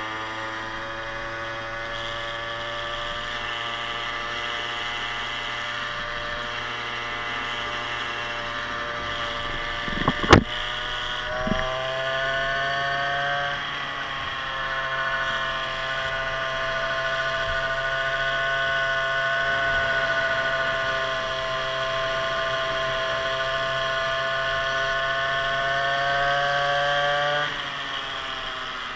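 Small two-stroke scooter engine, a 49cc unit bored out to 52cc, running at steady high revs under way. A sharp knock about ten seconds in; shortly after, the engine note rises a step and holds, then drops off near the end.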